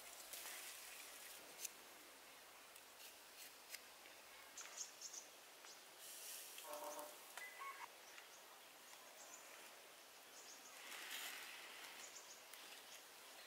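Near silence: faint outdoor ambience with scattered soft clicks and rustles from handling leaves and food, and a brief bird call about seven seconds in.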